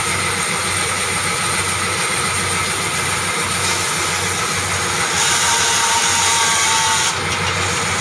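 Band saw running steadily with a low motor hum as its blade cuts through a log. About five seconds in, the cutting grows louder and brighter, then drops off abruptly about two seconds later as the cut goes through.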